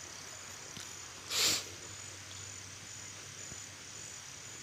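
Steady, high pulsing chirring of insects in the background, with one short noisy swish about a second and a half in.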